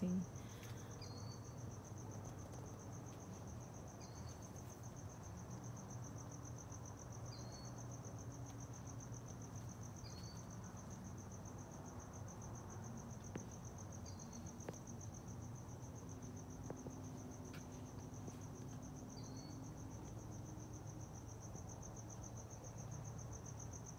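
Crickets trilling in one continuous, evenly pulsed high trill, with a shorter chirp repeating every few seconds. A low steady hum runs underneath.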